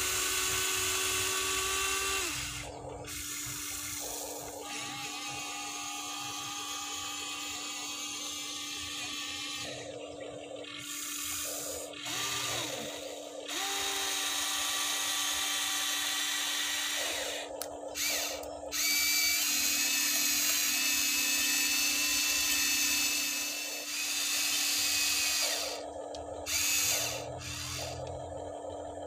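Huina 1593 RC excavator's small electric motors and gearboxes whining. The whine comes in stretches of a few seconds that start and stop, and changes pitch from one motion to the next as the tracks, the turntable swing and the arm are worked.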